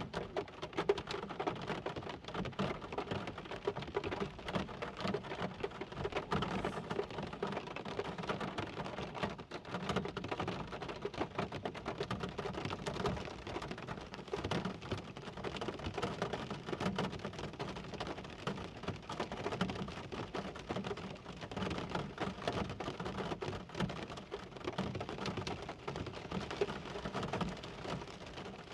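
Steady rain, with a dense, irregular run of close drop impacts.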